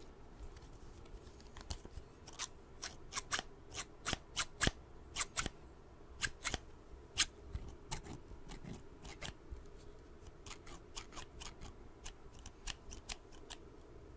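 Scissors snipped open and shut again and again right up against a microphone: a run of sharp clicks, about two or three a second, starting a couple of seconds in and loudest in the middle.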